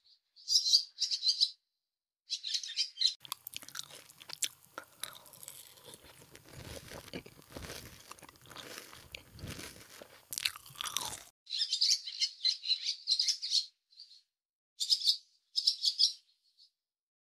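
Chicks peeping in short clusters of high chirps, then several seconds of dry crunching and scratching as a hen pecks at the ground, then more chick peeps.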